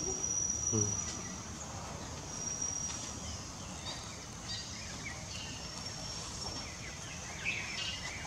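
Outdoor ambience: a steady background hiss with a thin high whistle that comes and goes, and a few small bird chirps near the end.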